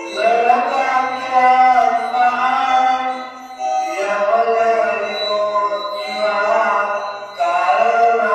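A song: a sung melody with long held notes over instrumental backing. The phrases break off briefly about three and a half and seven and a half seconds in.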